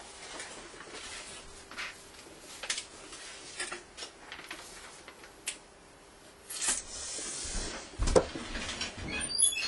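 Scattered clicks and knocks of objects being picked up and handled, with a stretch of rustling and a heavy thump, the loudest sound, near the end, over a faint steady hum.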